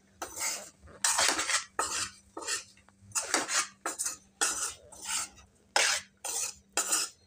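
A spatula stirring and scraping brinjal pieces and ground masala powder around a metal kadai, in quick irregular strokes about two a second.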